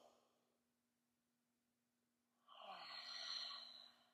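A woman breathing deeply into her cupped hands: the tail of a deep inhale at the start, a pause, then a long, audible exhale about two and a half seconds in that lasts about a second and a half.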